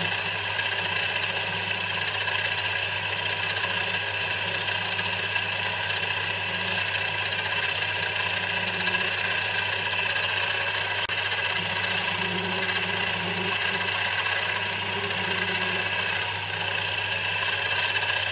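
Small metal lathe running steadily with a constant motor hum while the cutting tool takes a light facing cut, relieving the inner section of a rough casting about ten thou deeper.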